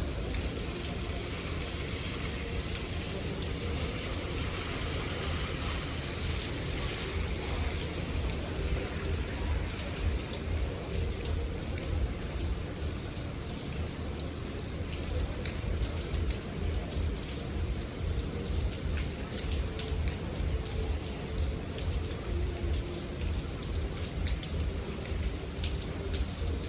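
Steady rain falling, with a patter of many small drops over a continuous low rumble.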